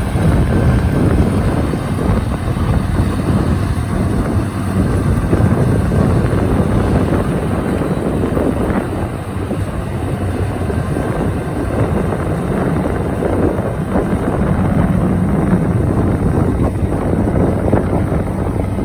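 Kubota DC-73 rice combine harvester running steadily at work, its engine drone and machinery noise holding an even level.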